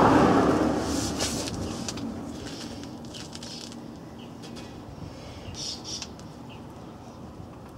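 A passing vehicle, loudest at the start and fading away over about two seconds, followed by a quieter stretch with faint high chirps and light clicks.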